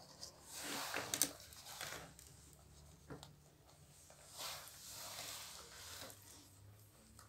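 Faint rustling of a hand stroking nursing newborn pit bull puppies and their mother, in two longer stretches, about a second in and again about four and a half seconds in. A low steady hum runs underneath.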